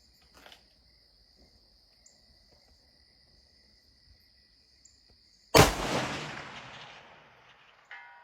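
A single rifle shot from a .338 ARC AR-15, about five and a half seconds in, with a rolling echo that fades over about two seconds. About two and a half seconds after the shot comes a faint, short ring of a steel target plate being hit at 600 yards.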